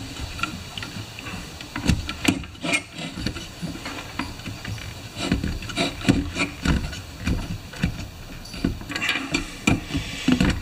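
Hands handling the plastic housing, fuel line and wiring of a partly assembled chainsaw: irregular clicks, knocks and rubbing of parts against one another.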